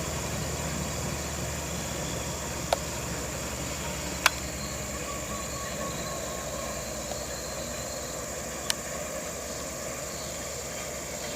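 A steady low vehicle engine rumble with a high insect buzz over it, and three sharp clicks: about 3 seconds in, about 4 seconds in and near the end.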